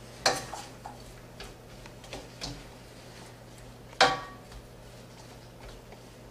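A utensil stirring vegetables in a stainless steel wok, knocking against the metal. There are two sharp clanks, one just after the start and a louder one about four seconds in, with a few light taps in between.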